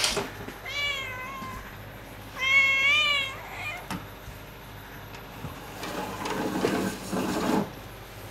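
A cat meowing twice, each meow about a second long with a pitch that rises and falls, the second louder. Some seconds later comes a rough, unpitched noise lasting about two seconds.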